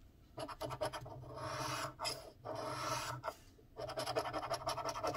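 Scratching the coating off a lottery scratch-off ticket: rasping strokes in three bouts, with short pauses about two and three and a half seconds in.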